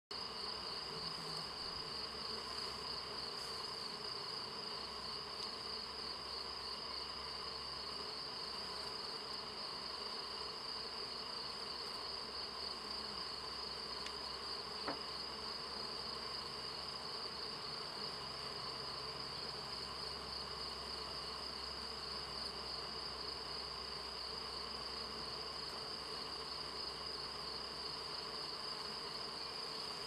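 Honey bees buzzing steadily over the top bars of an open hive, with a steady high-pitched trill over the hum and a single faint click about 15 seconds in.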